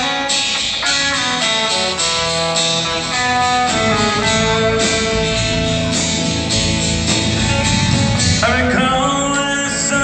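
Live country band playing an instrumental guitar passage: lead guitar lines over strummed acoustic guitar, bass and drums, with bending notes near the end.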